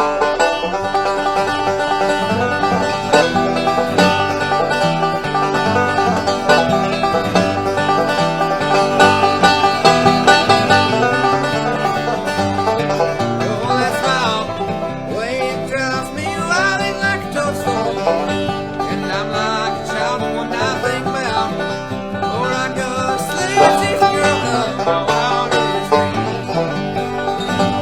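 Bluegrass music with banjo and acoustic guitar playing together, kicking in abruptly at the start of a song.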